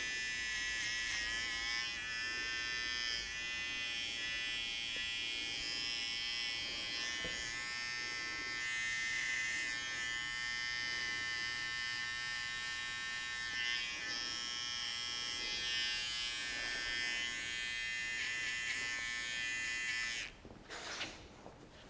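Electric hair clipper running with a steady, high-pitched buzz as it trims the short hair around the ear and sideburn contours. It switches off shortly before the end.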